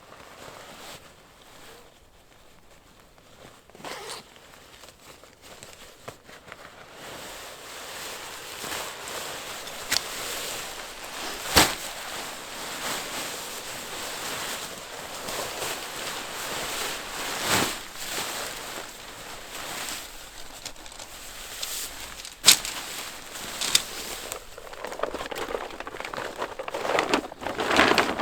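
Rustling and crackling that grows louder about a quarter of the way in, with several sharp clicks scattered through it and a busier stretch of rustling near the end.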